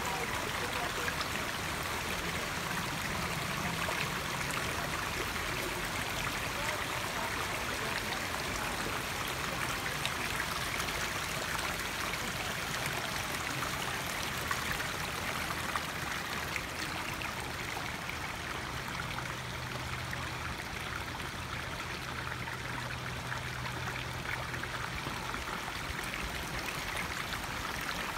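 Shallow creek running over rocks and stones, a steady wash of flowing water.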